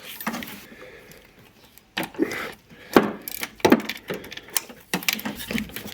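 Metal clinks, knocks and scrapes of hand tools and a small metal cover plate being worked loose in a car's engine bay, several sharp clicks spread over the last few seconds.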